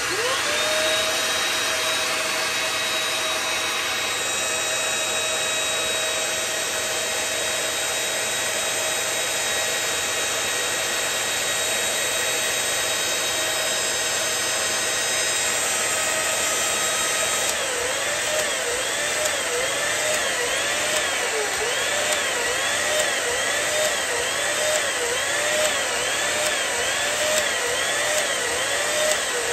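Vacuum cleaner motor spinning up over a running hair dryer, both powered from a 1500 W inverter near its full load. From about two-thirds of the way through, the vacuum's pitch rises and falls about once a second: the inverter's overload protection is pulling its output voltage down at around 1500 W.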